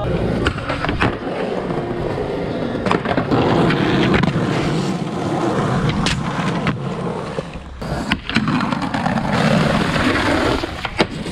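Skateboard wheels rolling on concrete and trucks grinding along concrete ledges, with several sharp clacks from the tail popping and the board landing.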